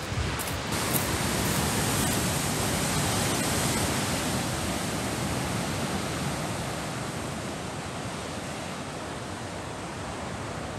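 Ocean surf breaking against the rocks below, heard as a steady wash of noise that swells a couple of seconds in and then slowly eases. A few faint clicks near the start.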